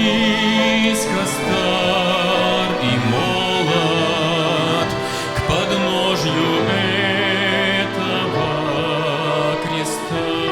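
Chamber orchestra of bowed string instruments playing a hymn tune, the melody played with vibrato over held lower parts.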